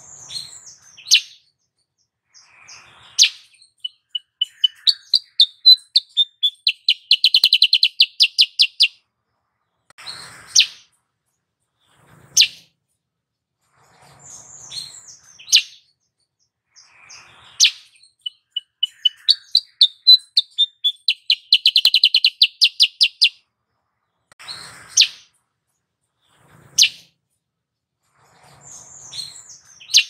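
Black-headed bulbul (cucak kuricang) singing: sharp short calls and whistles, then a long run of rapid repeated notes, the sequence heard twice.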